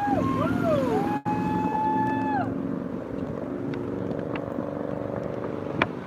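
Car horns honking from passing traffic in answer to roadside campaign sign-wavers. The longest honk is held for over a second and drops in pitch as the car goes by, then the steady rumble of road traffic runs on, with a sharp click near the end.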